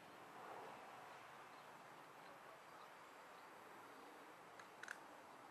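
Near silence: faint outdoor background hiss, with one brief high-pitched blip near the end.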